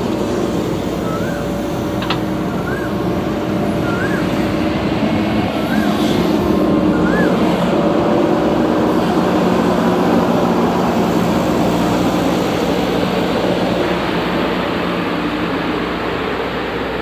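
Heavy diesel machinery engines running at a steady hum, growing louder for several seconds in the middle. A short rising-and-falling chirp repeats about every 0.7 s through the first seven seconds.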